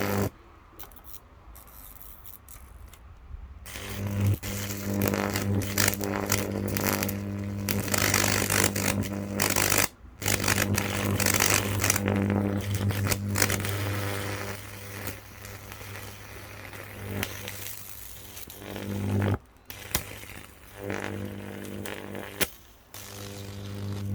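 Microwave oven transformer energised and humming loudly under load, while its high voltage arcs and crackles across an air conditioner circuit board, burning it. The hum and crackle start a few seconds in, drop out briefly about ten seconds in, and stop and start again near the end.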